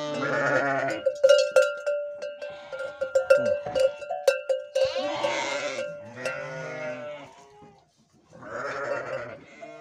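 Several sheep bleating in turn, with a long steady high tone and scattered clicks through the first half.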